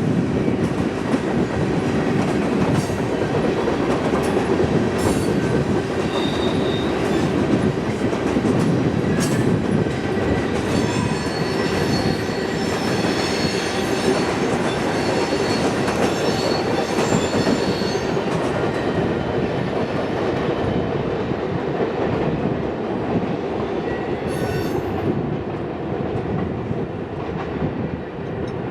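Freight train cars rolling past: a steady rumble of steel wheels on the rail with scattered clicks and bangs, and a high wheel squeal from about a third of the way in to past the middle.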